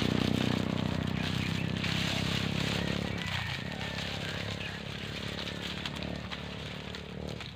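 Crackling of a smoke fire lit under a wild honeybee nest. Over it runs a steady low hum that fades out about three seconds in.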